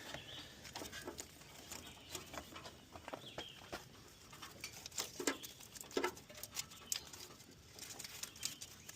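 Old electrical tape being peeled off a car's wiring harness: faint, irregular crackles and clicks, with two slightly louder ones about five and six seconds in.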